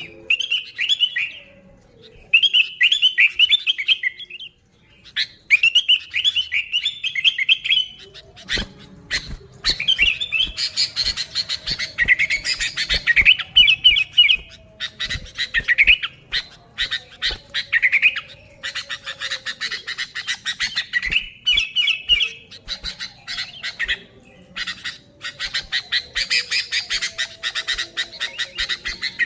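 Sooty-headed bulbul (kutilang) calling repeatedly in lively bursts: short, bubbly warbled phrases, with a rapid, scratchy chatter joining in from about a third of the way through.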